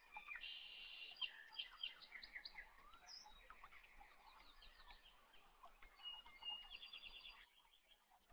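Faint birdsong: small birds chirping, with several quick trilled phrases.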